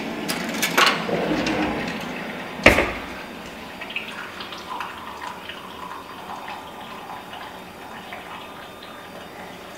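Keurig single-cup brewer dispensing hot water into a mug on its small-cup setting: a steady stream of water pouring into the cup, slowly fading. A few sharp clicks in the first three seconds, the loudest about two and a half seconds in.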